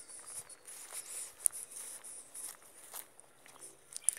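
Soft scuffing and rustling of a person walking, with a few short sharp clicks, the loudest about one and a half seconds in.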